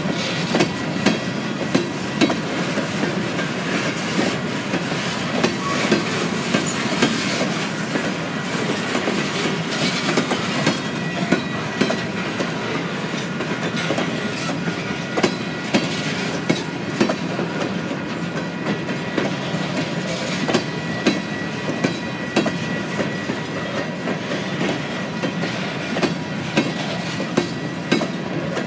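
Freight cars of a passing freight train rolling by, wheels clacking over rail joints about once a second over a steady rumble of rolling stock, with a faint thin steady ringing above.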